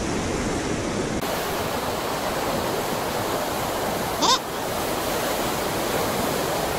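Pacific surf breaking and washing up the beach, a steady rushing noise, with one short rising cry about four seconds in.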